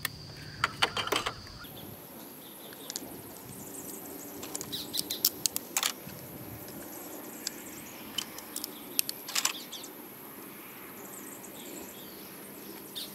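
Scattered light clicks and crinkles of hands handling a thin wire and clear tape at a car battery terminal, over a steady high-pitched background whine.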